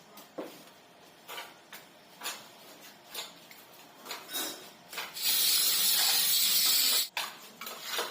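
Scattered light knocks, then a loud steady hiss of about two seconds, like air or spray escaping, that cuts off suddenly.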